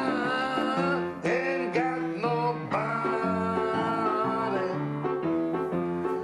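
A song: a voice singing long, wavering notes over instrumental accompaniment.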